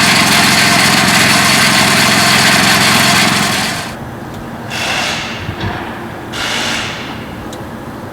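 Cordless brush cutter with a steel blade, running loud and steady for about three and a half seconds, then dropping off. After that come shorter whooshing bursts roughly every second and a half as the blade sweeps and cuts.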